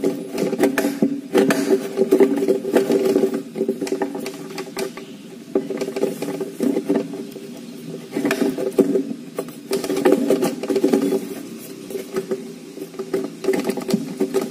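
Cordless drill-driver running in several bursts of a few seconds each, with rattling clicks, as it drives screws that fix a lift-up cabinet door mechanism to the cabinet's side panel.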